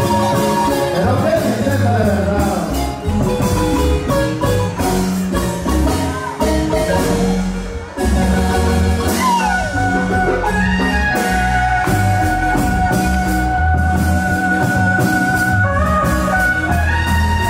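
Live marimba band playing a dance tune: quick marimba runs over a steady bass line. After a brief dip about halfway through, long held notes come in over the marimba.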